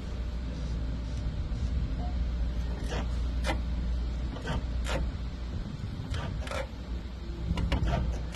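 Porsche Macan Electric's brakes and suspension creaking and squeaking in a string of short, irregular creaks over a steady low rumble of the car. The owner suspects play in the front control arms combined with an aggressive brake pad compound, and finds it worst when coming to a full stop.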